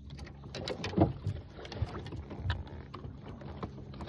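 Steady low hum of a boat's motor, with scattered knocks and clatter on the boat. The loudest is a thump about a second in.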